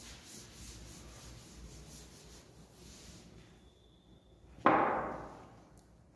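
Chalkboard duster rubbing across a blackboard, fading out over the first three seconds. Then, a little past the middle, one sharp knock with a short ringing tail, the loudest sound here.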